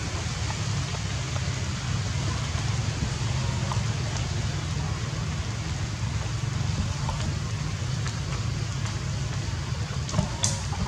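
Steady rain falling through forest foliage, an even hiss with a low rumble beneath it. A few sharp ticks come near the end.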